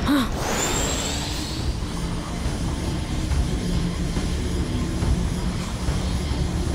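Cartoon jet-flight sound effect for a small flying craft: a whoosh rising in pitch in the first second, then a steady jet-like hum with a thin high whine over it.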